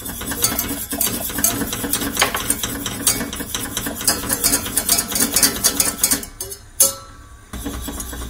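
Wire whisk beating lemon cream in a stainless-steel saucepan as it cooks and thickens: rapid clinking of the wires against the pan. It stops for about a second some six seconds in, with one knock, then starts again.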